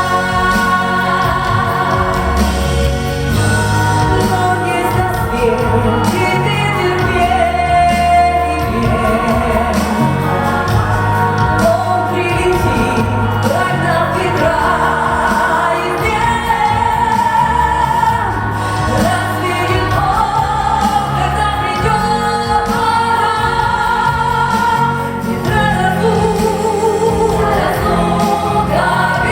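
Vocal ensemble singing a song with instrumental backing and a steady bass line.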